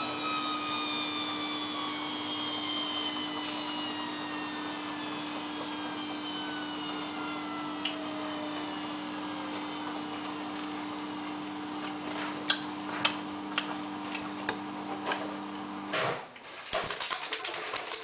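Samsung WF8804RPA front-loading washing machine winding down from an 800 rpm inter spin: a steady motor hum with a slowly falling whine as the drum slows. From about ten seconds in, clicks of hard parts in the load knock against the drum. The hum cuts off about sixteen seconds in, and a clatter follows as the dirt bike gear's fittings tumble in the slowing drum.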